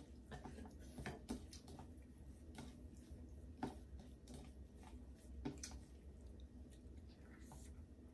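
Faint eating sounds: scattered short wet clicks and smacks of someone chewing, about a dozen, irregularly spaced, over a low steady hum.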